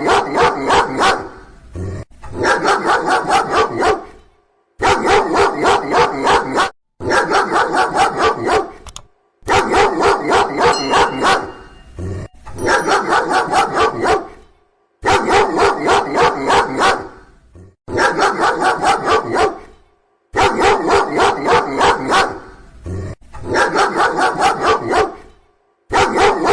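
A dog barking loudly in quick runs of about four or five barks a second. Each run lasts roughly two seconds, with short breaks between runs.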